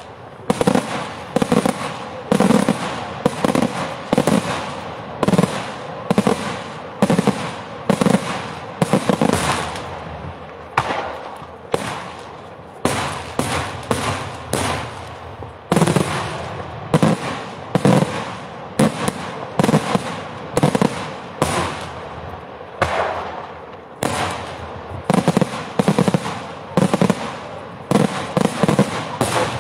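Daytime fireworks display, Italian-style sparata diurna: aerial shells and salutes bursting in rapid volleys of sharp bangs, several a second, each cluster dying away before the next.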